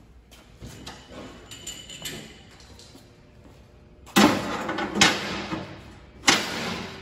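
Cast-iron cooking grates of a Weber Spirit E315 gas grill being set down into the firebox. A few light knocks come in the first couple of seconds, then three loud metal clanks in the second half, each ringing briefly.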